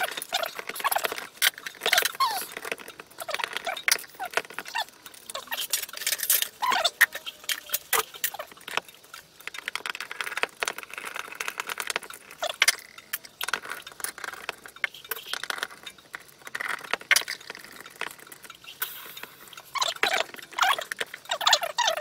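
Hand work on a Honda VFR400R carburetor bank: a screwdriver and metal parts clicking, clinking and scraping, with a few short squeaks.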